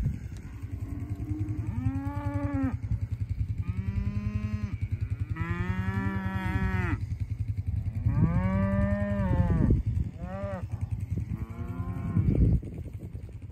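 Beef cattle mooing, about six long moos from several animals one after another over a steady low rumble.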